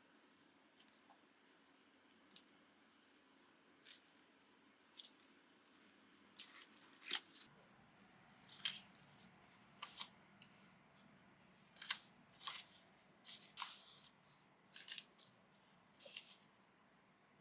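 A run of short, crisp snips and clicks, about a dozen, irregularly spaced and faint, from hands working at food preparation.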